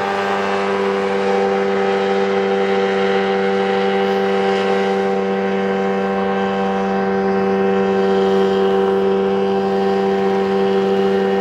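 Tohatsu 30 outboard jet engine running flat out at full throttle: a loud, steady drone that holds one pitch as the boat reaches its top speed of about 36 km/h.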